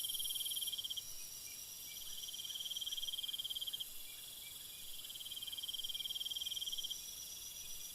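Faint insect trills, typical of crickets chirping: rapid pulsed trills in runs of one to three seconds, with short gaps between them.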